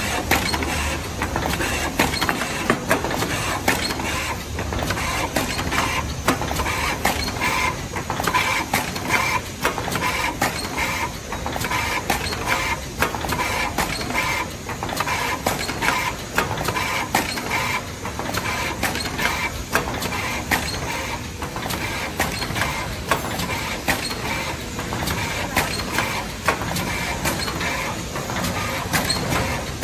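Carton erecting machine running, pressing corrugated paper blanks into hamburger boxes and fries trays: a continuous, fast, uneven clatter of clicks and knocks from its forming moulds and pneumatic cylinders over a steady mechanical noise.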